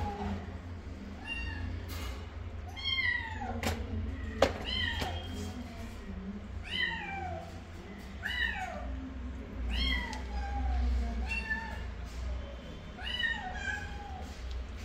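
Kittens about eleven days old mewing: high, thin cries that fall in pitch, about one a second. A few sharp clicks come between them, the loudest about four and a half seconds in.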